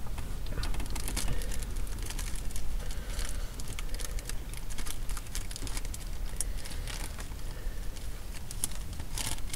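Paper wrapping crinkling and rustling in irregular small clicks as a piece of banana bread is handled, over a low steady hum.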